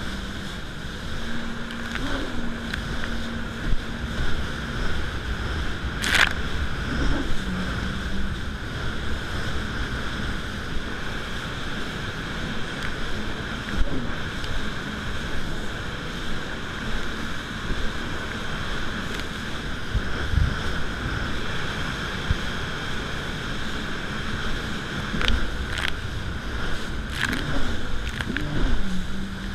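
Yamaha VX 110 jet ski running at speed over open sea: its four-stroke engine and jet pump make a steady drone under rushing water and spray, with wind on the microphone. A few brief sharp knocks come about six seconds in and again near the end.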